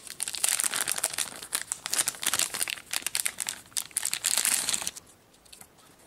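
Crinkling and crackling of a thin plastic anti-static bag as a new laptop hard drive is unwrapped by hand, stopping about five seconds in.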